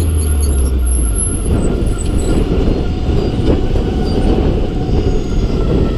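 Wind buffeting the camera microphone and tyre and road noise while riding a 2016 Zero FXS electric motorcycle at city speed, a steady dense rumble. The electric bike adds no engine sound.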